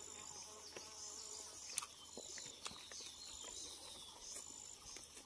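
Insects chirping: high, pulsing trills repeating over and over, several at once. A few faint clicks from eating by hand come through close by.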